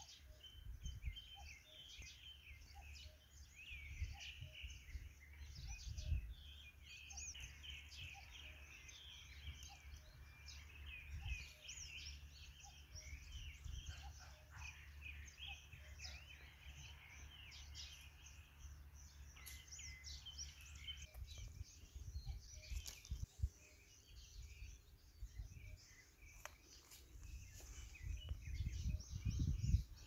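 Many wild birds chirping and trilling, overlapping calls. A low rumble runs underneath and grows louder near the end.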